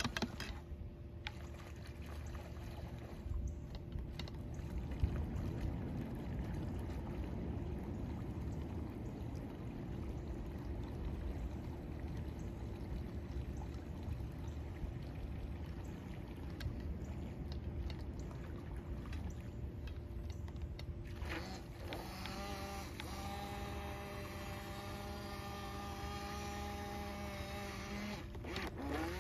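Radio-controlled model boat running on a pond: a steady motor hum over a constant hiss of water. About three-quarters of the way through the sound changes to a clearer, higher motor whine made of several steady tones.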